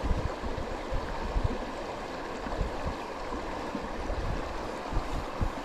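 Shallow river water running and gurgling, with splashing and irregular low bumps as a hand works in the water around a landing net holding a trout.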